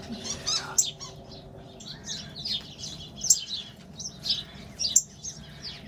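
Songbirds at a feeder chirping, many short, high chips and calls coming irregularly and overlapping, with a few sharper, louder notes.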